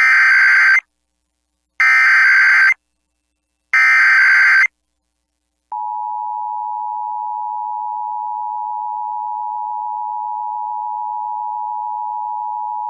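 Emergency Alert System SAME header: three short bursts of screechy digital data tones about two seconds apart. About six seconds in comes the steady two-tone EAS attention signal (853 and 960 Hz), which marks the start of an alert broadcast.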